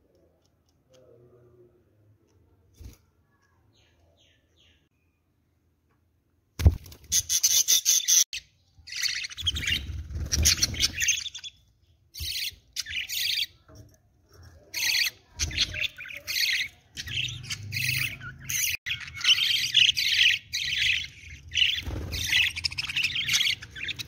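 Almost nothing for the first six seconds, then a knock and a budgerigar's loud, harsh squawking and chirping in quick bursts through the rest.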